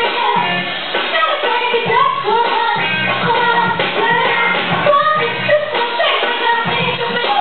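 A high-pitched lead vocal sung live into a handheld microphone over a loud pop backing track with a pulsing bass line, played through a stage sound system.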